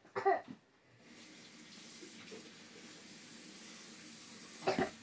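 A steady rushing hiss, like running water, starting about a second in and lasting about four seconds, with brief voice sounds at the start and near the end.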